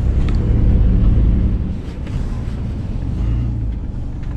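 Car engine and road noise heard from inside the cabin: a steady low rumble that grows quieter about two seconds in.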